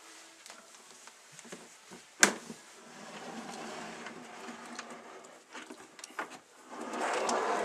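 Plastic snake tubs being slid in and out of a reptile rack: a sharp clack about two seconds in, then scraping and rustling of the tub, which grows louder near the end as another tub is pulled out.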